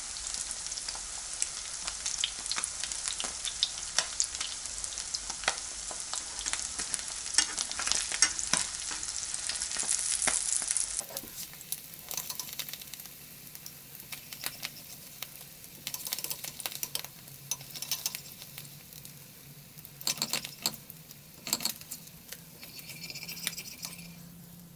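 Halloumi cheese sizzling and crackling as it fries in butter in a frying pan. About eleven seconds in the sizzle turns fainter, with scattered clicks and scrapes of a metal fork against the pan as the pieces are lifted out.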